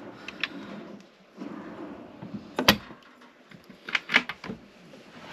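Motorhome kitchen drawers and a cupboard door being worked by hand: small clicks, one sharp click about halfway through, then a quick cluster of clicks and knocks near the end as the cupboard door's catch is released.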